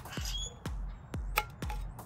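Electronic dance music (trance) with a steady kick drum about twice a second. One sharp click comes about one and a half seconds in.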